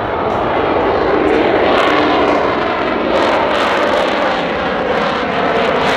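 Loud jet noise from an F-35A Lightning II's single Pratt & Whitney F135 turbofan as the fighter climbs steeply overhead. It swells over the first second and then holds, with a crackle setting in about halfway through.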